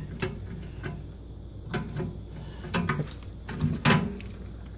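Metal door of a Stack-On security cabinet being swung and handled: a few separate clunks and rattles, the loudest near the end.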